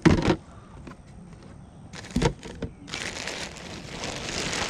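A sharp knock, the loudest sound, then a smaller one about two seconds in, as things are handled in a cardboard box of plastic coffee cans. From about three seconds in, a black plastic garbage bag rustles and crinkles steadily as it is pulled about.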